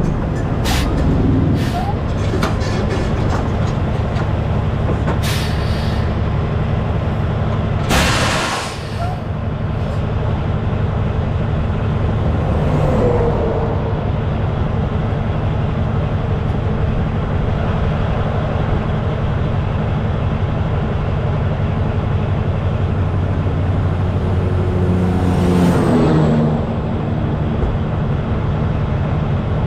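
Semi-truck diesel engine idling steadily through its chrome vertical exhaust stacks, with several short sharp hisses of air, the loudest about eight seconds in, and a brief swell late on.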